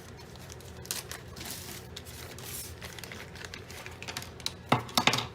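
Plastic packaging crinkling as a diamond painting toolkit is handled and opened, with a louder flurry of crinkles near the end.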